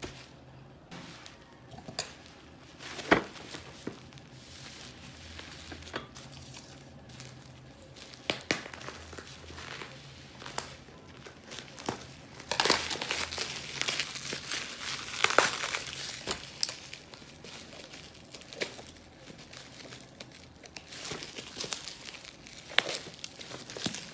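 Plastic parcel packaging being torn open and crinkled by hand: irregular crackling and rustling with a few sharp snaps, busiest about halfway through.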